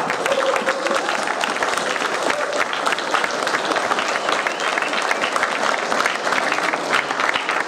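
Audience applauding steadily, with many hands clapping at once and some voices mixed in.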